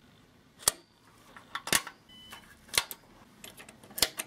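Toggle switches and push-buttons on Unitra hi-fi amplifier front panels being switched, about half a dozen sharp mechanical clicks at irregular intervals.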